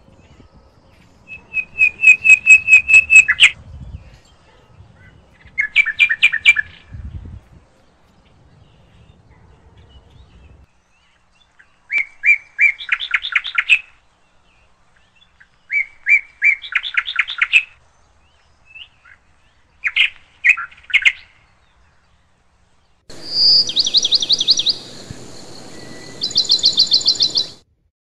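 Songbird singing: about six phrases, each a few clear notes running into a rapid trill, with pauses between them. A steady background hiss comes in under the last two phrases.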